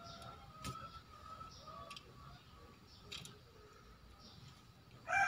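A few faint small clicks about a second apart from a car key fob being handled in the fingers. Just before the end a rooster starts crowing, much louder than anything before it.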